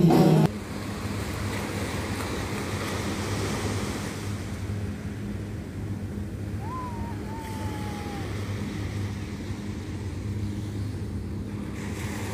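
Small waves breaking and washing up a sandy beach, a steady surf with wind on the microphone.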